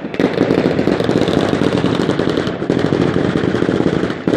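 Fireworks firing a dense, rapid, unbroken string of sharp cracks for about four seconds, stopping just before the end.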